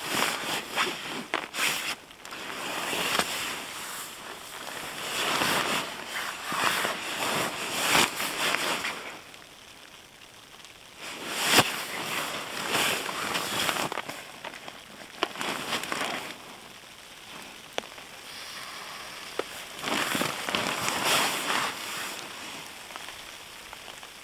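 Crinkling and rustling of an inflatable sleeping mat's nylon fabric and a padded jacket as a person lies down on the mat and shifts about on it, coming in uneven bursts with a few sharp clicks and quieter pauses between.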